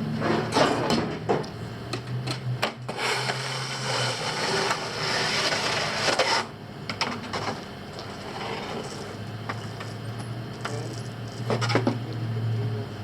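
3D printer running: its stepper motors hum in low steady tones that shift pitch from move to move, among sharp clicks and knocks, with a few seconds of hiss in the middle.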